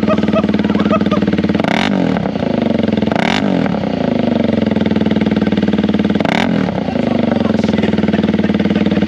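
Honda Rebel 300 single-cylinder engine idling through a Coffman's Thunder exhaust with its silencer out, revved up and back three times, about two seconds in, three and a half seconds in and six and a half seconds in. With no catalytic converter and only light baffling it is essentially straight-piped and very loud.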